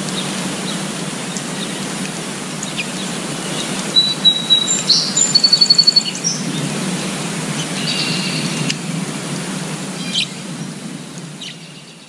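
Steady rain on forest foliage with birds calling through it; about five seconds in, one bird gives a quick trill of rapid, even notes. The sound fades out near the end.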